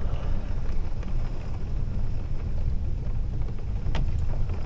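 Thunderstorm: a steady low rumble of thunder with rain and wind, and one sharp click about four seconds in.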